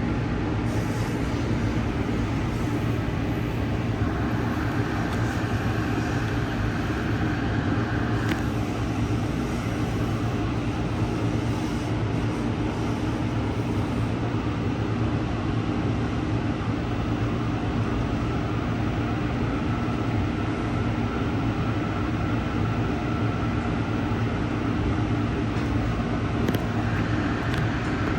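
Steady low rumble of a moving Amtrak passenger train, heard from on board: wheels running on the rails. A faint higher whine comes in about four seconds in and fades a few seconds later.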